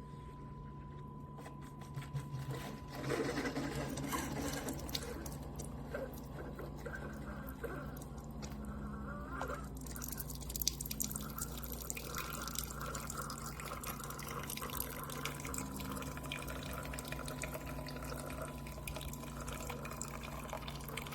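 Keurig K-Supreme Plus single-serve coffee maker brewing: a steady hum runs throughout, and from about two seconds in, liquid streams and drips into the cup.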